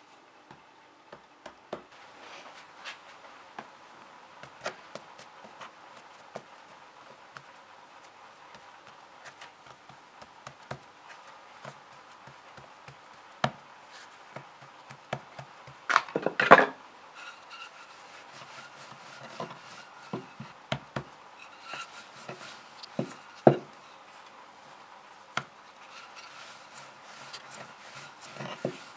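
Hands handling bread dough on a floured worktop: soft rubbing with scattered taps and knocks on the counter, and a louder cluster of knocks about halfway through.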